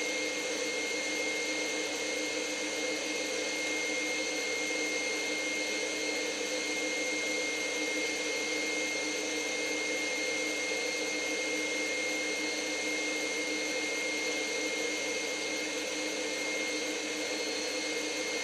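Stand mixer motor running steadily at speed, a constant whine with a high steady tone, its whisk beating egg yolks into hollandaise sauce as browned butter is added.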